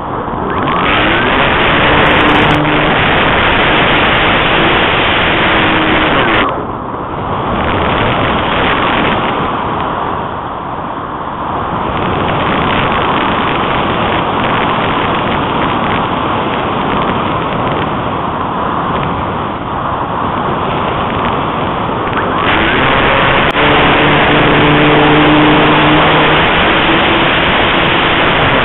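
Loud rushing wind noise from airflow over the onboard keychain camera's microphone on a Minimoa model glider in flight, swelling and easing with airspeed through the manoeuvres. A faint low hum comes in briefly twice.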